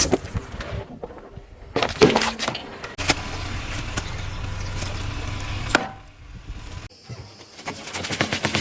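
Crunching and cracking of objects being crushed under a car's tyres, in several short bursts of crackling snaps. There is a steady stretch of rolling noise in the middle that ends in a sharp snap.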